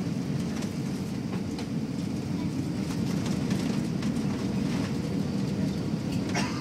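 Steady low rumble of an Airbus A380 heard from inside the cabin on the runway at take-off, with faint knocks and rattles now and then.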